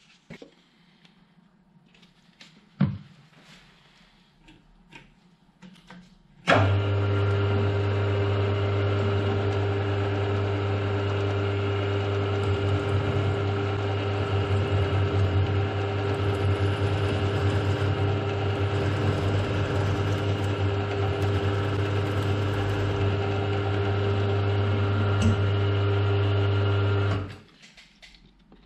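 Milling machine's spindle motor starts with a jolt about six seconds in and runs at a steady pitch while a No. 4 centre drill spots a starter hole in the top of a broken bolt, then shuts off shortly before the end. Before it starts there are a few light knocks and clicks.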